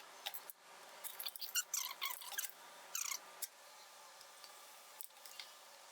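Hand work on the 22RE engine's rocker arms and valve train: a quick run of short, high-pitched scrapes, squeaks and clicks of metal parts being handled and oiled, busiest over the first three seconds or so, then a few faint ticks.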